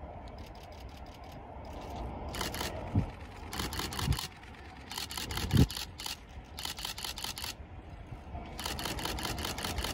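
Camera shutters firing in repeated continuous-shooting bursts of rapid clicks, about ten a second. Under them are a low rumble, a few dull thumps and a steady hum that starts a few seconds in.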